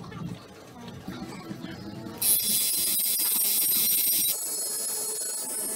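Tattoo machine buzzing with a high whine: it stops at the start, starts again abruptly about two seconds in, and drops to a lower level about two seconds later.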